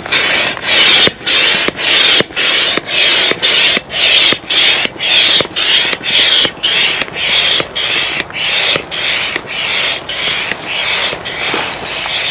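Hand air pump being worked steadily, about two strokes a second, each stroke a rush of air with a click at its start, as it inflates the air beams of an inflatable tent.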